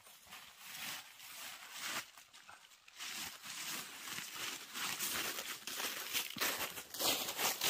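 Irregular rustling and crinkling of leaves and twigs, dropping low about a second in and growing louder again near the end.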